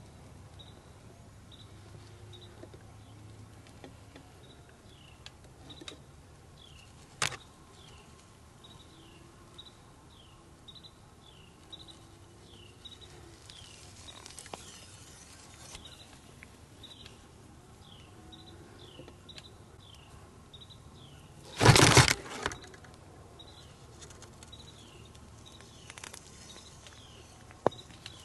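Repeated short, high chirps, each falling slightly in pitch, coming a little faster than once a second. A sudden loud scuffing noise lasting under a second breaks in about three quarters of the way through, with a few sharp clicks earlier and near the end.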